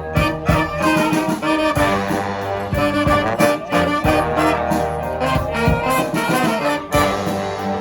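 Brass band playing live: several horns sounding together over sharp drum hits.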